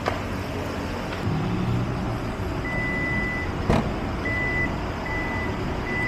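A vehicle's reversing beeper starts a few seconds in with one longer high beep, then beeps evenly a little faster than once a second, over the steady noise of engines and street traffic. A single sharp knock comes in the middle.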